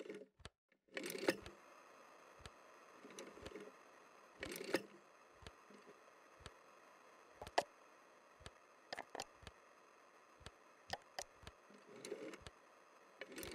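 Faint, unevenly spaced clicks and a few soft rustles of a telephone being handled and dialled, over a low steady hiss.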